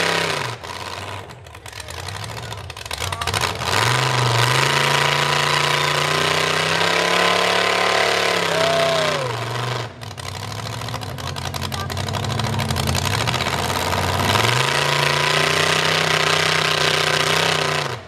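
The built V8 of a Dodge mega mud truck revving as it works through deep mud. It drops back, then climbs and holds high for several seconds, falls off about ten seconds in, and climbs and holds again near the end.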